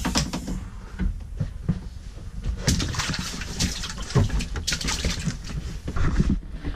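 Shoes stepping and shuffling in shallow standing water on the fibreglass floor of a small boat compartment, in several splashy bursts with rubbing and bumping. The water has leaked into the hull.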